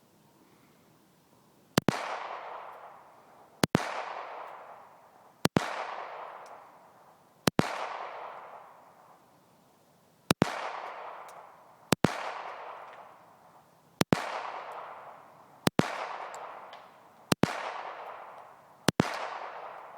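.22 calibre target pistol fired ten times at a steady pace, about one shot every one and a half to two seconds. Each sharp crack is followed by a long fading echo.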